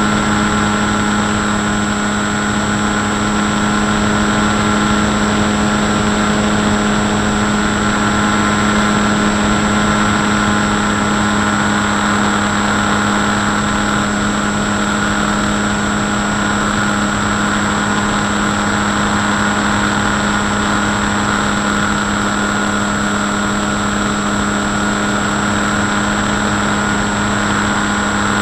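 Electric motor and pusher propeller of an FX-79 flying-wing model plane droning at a steady pitch in cruising flight, picked up by an action camera mounted on the airframe, with wind rushing over it.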